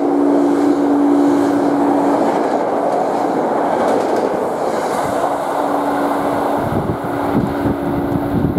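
Electric-hauled passenger train passing at speed alongside a platform: a steady rush of coaches and wheels on the rails, with a low steady hum that fades out around three seconds in and returns about two seconds later. Near the end comes a heavier rumble with wheel clacks.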